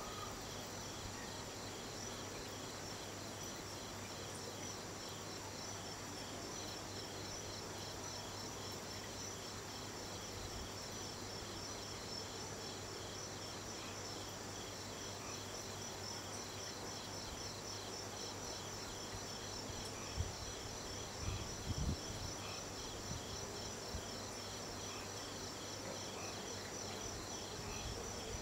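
Insects trilling steadily, a fast pulsing chirr repeated without pause, over light hiss and a low steady hum. A few soft low bumps come about twenty seconds in.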